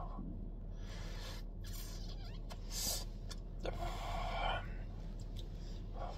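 A man smoking a cigarette: a quick hissing drag in about three seconds in, then a breathy exhale of smoke lasting about a second, over a low steady hum.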